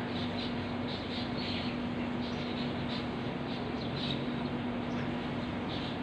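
Many small birds chirping at once in short, high calls scattered throughout, over a steady low hum.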